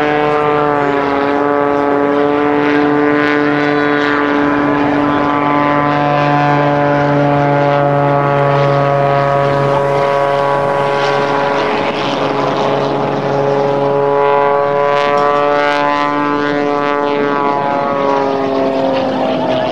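Aerobatic biplane's piston engine and propeller droning overhead, one steady pitched drone whose pitch wavers slowly down and up as the plane manoeuvres.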